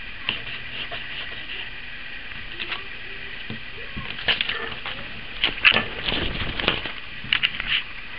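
Pencil scratching on paper, then paper rustling as sheets are handled and moved, louder and busier in the second half, over a steady background hiss.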